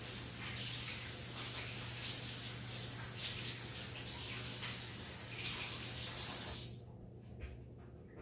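Water running from a sink tap as hands are washed, an even hiss that cuts off abruptly when the tap is shut off about seven seconds in.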